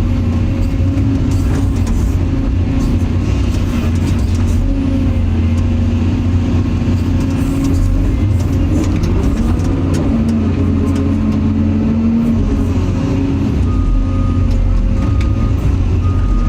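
Excavator's diesel engine and hydraulics running steadily under load while digging, the engine pitch dipping and rising around the middle as the load changes. A repeated short beep starts near the end.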